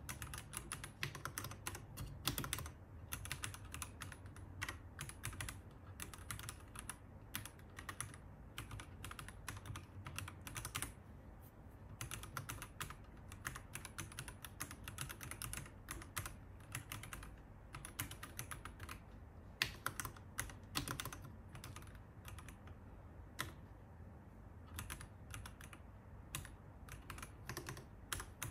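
Typing on a Royal Kludge RKH81 hot-swap mechanical keyboard fitted with RK Cyan switches: a fast, steady patter of keystroke clacks with two brief lulls.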